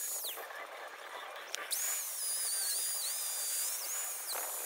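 Corded Dremel rotary tool whining at high speed, spinning down just after the start, then switched on and spun back up about a second and a half in. Its pitch wavers and dips as it is held against a mushroomed steel anchor bolt to cut the top off.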